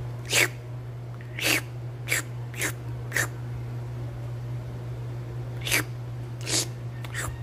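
A person making short wet slurping noises with the mouth, the sound of a cat licking itself, about nine in all: five in the first three seconds, then a pause, then four more close together near the end.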